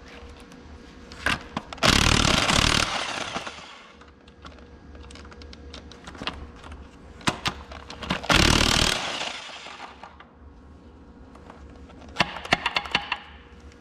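Impact wrench firing in two bursts of about a second each, about two seconds in and again about eight seconds in, loosening the connecting-rod cap nuts. A quick run of sharp metallic clicks follows near the end.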